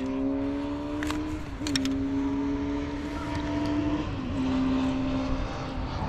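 Boat engine running with a steady hum; its pitch shifts slightly twice, and a few short clicks sound near the start.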